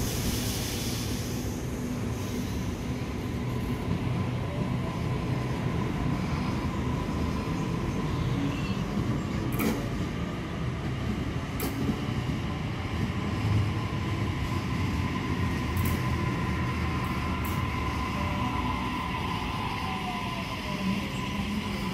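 Sydney Trains double-deck electric train approaching and running in along the platform: a steady rumble of wheels on rail with a constant whine, a few sharp clicks from the wheels through the middle, and a whine that falls in pitch near the end.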